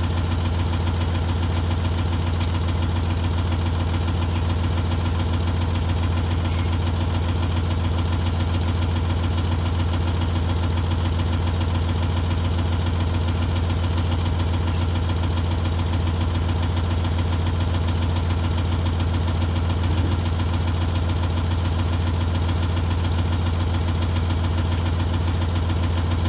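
Log skidder's diesel engine idling steadily.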